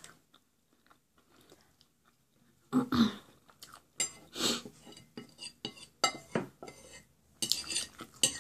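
Metal fork clinking and scraping against a dinner plate as food is scooped up, with chewing between the strokes. It starts about three seconds in, after a quiet moment, and comes in a run of sharp clicks and short scrapes.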